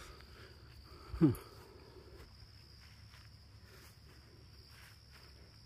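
Crickets trilling steadily in one high, even tone, with faint footsteps. About a second in comes one brief, loud, low sound that drops in pitch.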